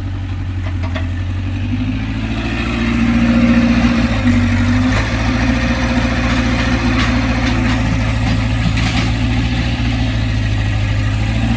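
Sumitomo excavator's diesel engine running steadily, getting louder about three seconds in and holding there.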